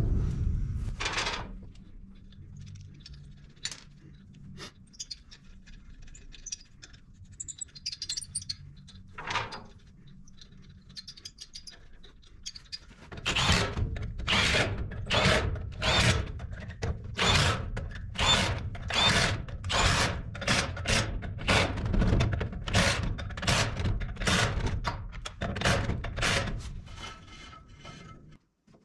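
Cordless impact wrench running a trailer wheel's lug nuts on, in a long string of short hammering bursts that starts about halfway through. Before it, a few quiet knocks as the wheel and nuts are fitted by hand.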